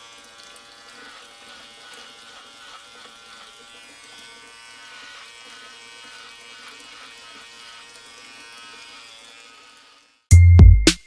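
A small electric motor buzzing steadily at a low level, with a stack of steady pitches. About ten seconds in it gives way abruptly to loud electronic music with heavy bass beats.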